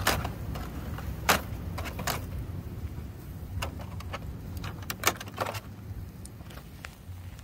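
Metal tongs clicking against the wire grate of a disposable foil-tray grill while the meat is turned: a scatter of sharp metallic clicks, the loudest right at the start and about a second in, over a low steady rumble.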